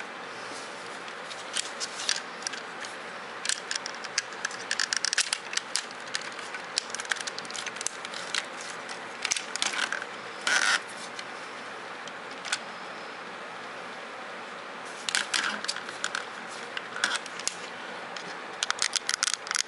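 Plastic parts of a Robots in Disguise Optimus Prime Transformers figure clicking, rattling and scraping as it is handled and its limbs and pieces are moved. The clicks come in scattered clusters, with a quieter spell about halfway through, over a steady faint hiss.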